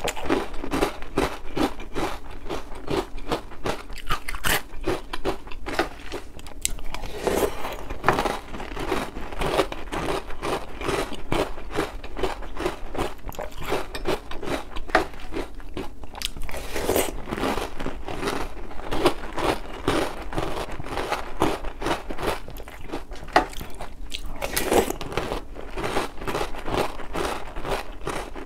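Close-miked chewing of a mouthful of Oreo O's cereal in milk: a dense, continuous run of crisp crunches as the chocolate cereal rings are bitten and chewed.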